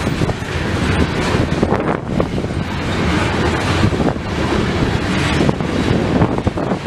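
Coal train's hopper cars rolling past: a steady rumble of steel wheels on the rails with scattered short clanks, mixed with wind buffeting the microphone.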